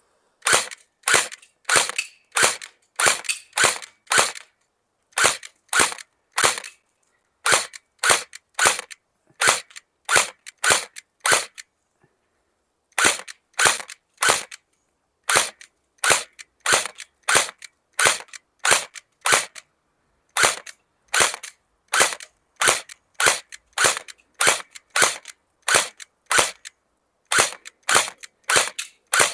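Electric airsoft AK-47 (Game Face Insurgent AEG) firing single shots on semi-automatic, a sharp crack with each trigger pull at about two a second. The shots pause for about a second near the middle, then resume.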